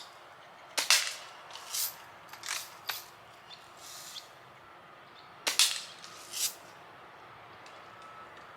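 Daisy Red Ryder lever-action BB gun firing twice, the shots about four and a half seconds apart, with several smaller clacks and rattles between them.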